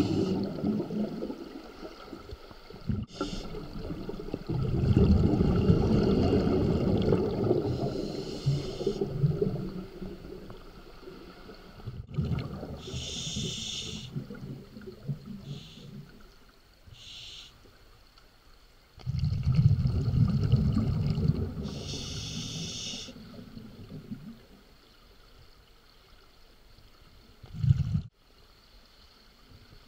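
Scuba diver breathing underwater through a regulator, heard through the camera housing: hissing inhalations alternate with long, low rumbling bursts of exhaled bubbles. The breathing comes in several separate stretches.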